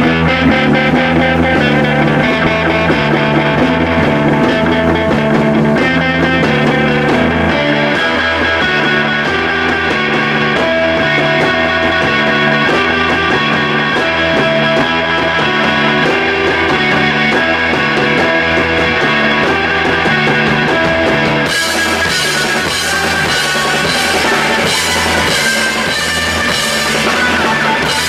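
Rock band playing an instrumental passage, guitar and bass riffing over a drum kit in a repeating pattern. About three quarters of the way through the sound turns suddenly brighter and fuller.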